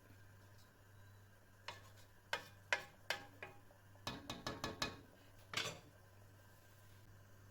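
A kitchen utensil knocking and clinking against cookware: about a dozen sharp, irregular knocks, some ringing briefly, between about two and six seconds in, over a faint steady low hum.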